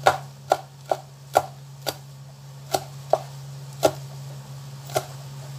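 Knife chopping vegetables on a cutting board: about nine separate sharp knocks of the blade striking the board, unevenly spaced, over a steady low hum.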